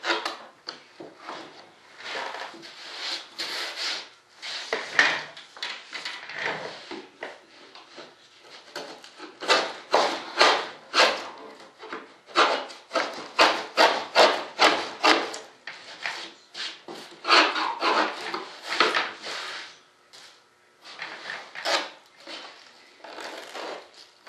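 A small hand tool scraping across a model jet's sheeted wing surface in quick repeated strokes. The strokes come in runs with short pauses between them.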